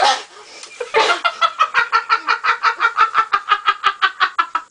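A girl laughing hard in a long, rapid run of short pitched 'ha' pulses, about seven a second, beginning about a second in after a brief loud outburst at the start.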